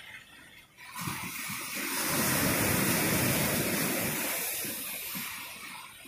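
An ocean wave surging in and washing over a rocky shoreline: the rush of water comes in suddenly about a second in, is loudest in the middle, and fades away near the end.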